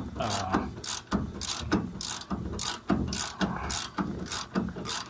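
Ratchet wrench clicking in repeated short strokes as the handle is swung back and forth, tightening the shock absorber's mounting nut.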